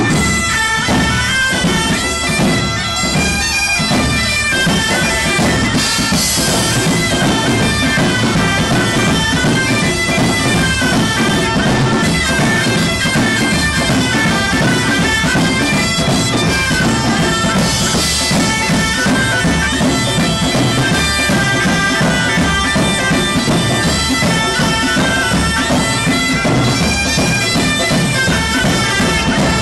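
Background music: a wind-instrument melody of held notes over a steady drum beat.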